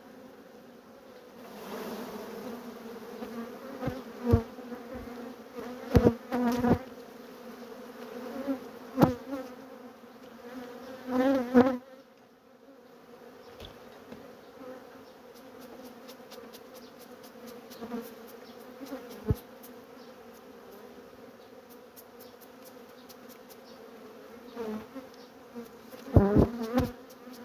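Honey bees buzzing steadily over an opened hive, a dense colony disturbed as its honey frames are taken out. Sharp wooden knocks and clicks come every few seconds as the frames are lifted and bumped against the hive box, with a loud cluster near the end.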